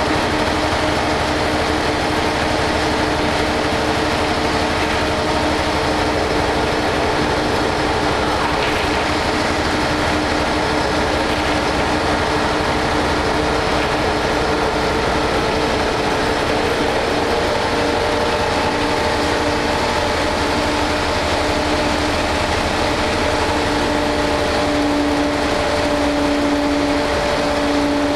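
Cabin sound of an Ikarus 280.03 bus under way: its diesel engine drones steadily along with road and body noise. The engine note shifts slightly about two-thirds of the way through.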